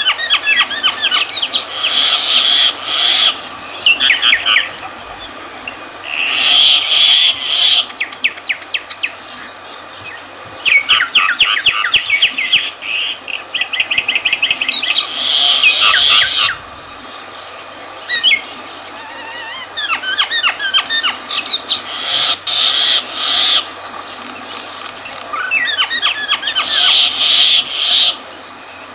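Myna calling in repeated bouts of quick, varied notes, each run lasting from about a second to several seconds with short pauses between, over a faint steady low hum.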